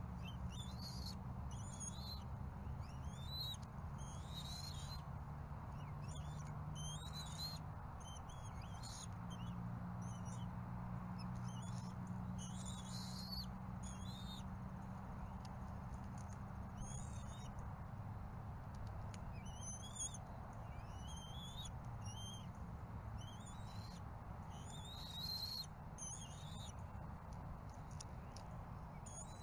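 Short high-pitched bird chirps repeating about once a second, each a quick glide in pitch, over a steady low hum.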